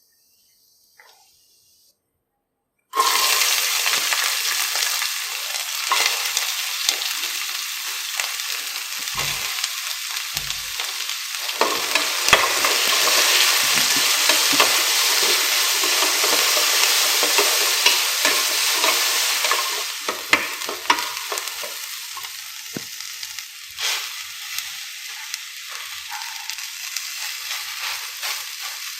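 Food dropped into hot oil in a pan starts sizzling loudly and suddenly about three seconds in, then keeps frying with the clicks and scrapes of a spoon stirring it; the sizzle eases somewhat later on.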